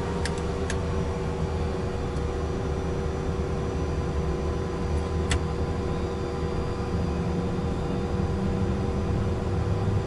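Citation business jet's turbofan engine running during an engine start, heard inside the cockpit: a steady whine of several tones over a low rumble. A few light clicks sound just after it begins and again about five seconds in.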